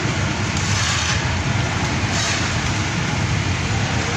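Olive mill machinery running: the stone edge-runner millstones turning in their pan over crushed olives make a steady, loud, low rumble, with two short swells of hiss.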